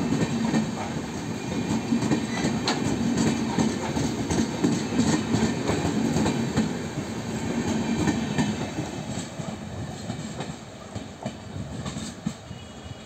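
Humsafar Express passenger coaches rolling past at speed, with a rumble and wheels clacking over rail joints. The sound fades over the last few seconds as the end of the train draws away.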